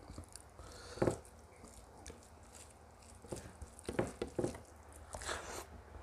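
Close-miked eating sounds: a person chewing food, with a few sharp wet smacks or clicks, the loudest about a second in and a cluster of three more in the second half.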